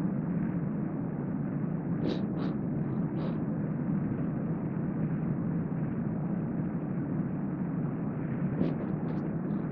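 Steady low rushing room noise, with a few short breathy hisses about two to three seconds in and a cluster more near the end.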